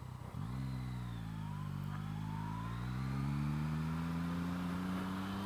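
Yamaha FZ-09's three-cylinder engine pulling away at low revs, its pitch rising slowly for about three seconds and then holding steady.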